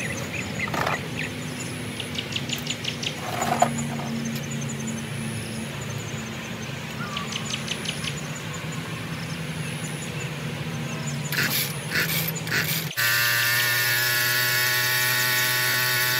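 Ryobi two-stroke chainsaw being pull-started: a few quick pulls on the starter cord near the end, then the engine catches suddenly and runs at a steady idle on fresh fuel mix and a regapped spark plug.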